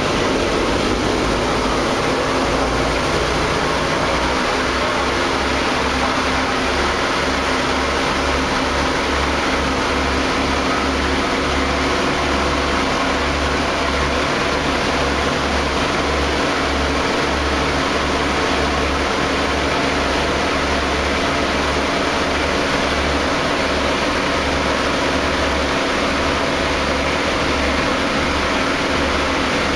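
Four Wright Cyclone radial engines of a B-17 bomber running, heard from inside the fuselage as a loud, steady drone with a low, uneven throbbing beat.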